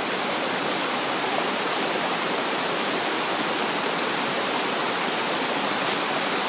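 Small waterfall and the stream below it: a steady, even rush of falling water, with no wind.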